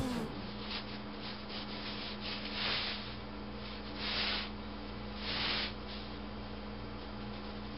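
Hands rolling and shifting baguette dough on a semolina-dusted perforated aluminium baking sheet: soft grainy rubbing, with three louder swishes in the middle, over a steady low hum.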